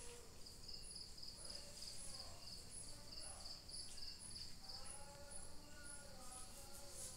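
Crickets chirping steadily, with evenly spaced pulsed chirps about twice a second and a fainter, higher trill alongside.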